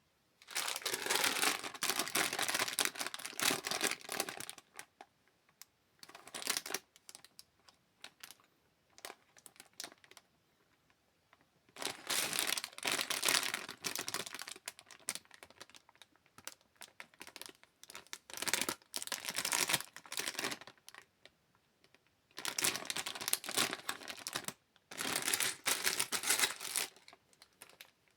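Packaging of a small LEGO set being opened: crinkling and tearing in about six bursts of a few seconds each, with quiet pauses between.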